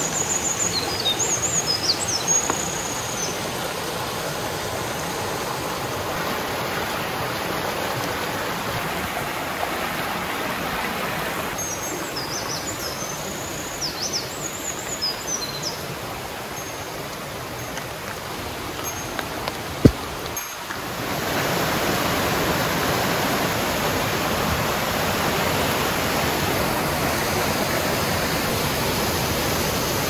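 Mountain stream rushing and splashing over rocks in a steady wash of water noise, with small birds chirping high above it near the start and again around the middle. A single sharp click comes about two-thirds of the way through, after which the rush of water is clearly louder.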